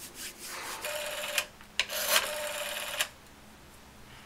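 Rotary telephone dial spinning back after numbers are dialed: a short whirring return about a second in, then a longer one lasting about a second.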